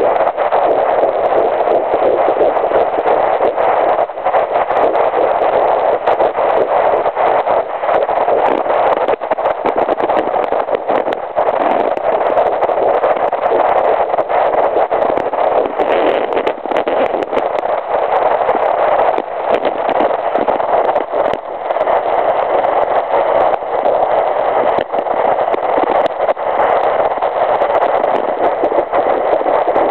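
Handheld fetal Doppler's speaker playing a 9-week fetus's heartbeat as a fast, steady whooshing pulse of about 168 beats a minute over a continuous hiss.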